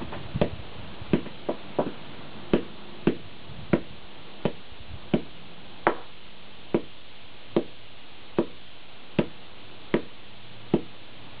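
A short-handled hammer striking crushed C batteries on concrete pavement, about sixteen sharp blows at a steady pace of roughly one every 0.7 seconds.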